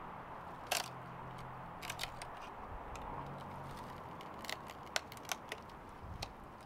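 A few sharp clicks and light knocks from handling the bee package, over a low steady background hiss.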